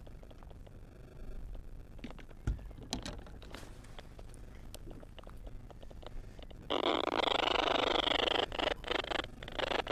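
Radio hissing with static, coming on abruptly about two-thirds of the way in and cutting in and out, the sign of a poor radio signal. Before it, faint clicks and a single low knock.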